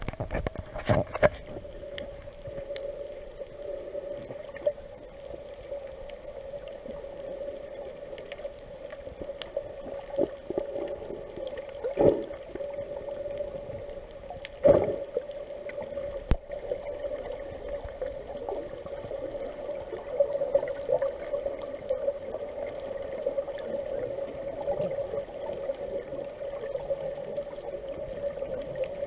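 Muffled underwater sound picked up through a waterproof action-camera housing: water sloshing and gurgling over a steady hum, with a few sharp knocks about a second in, around twelve seconds and around fifteen seconds.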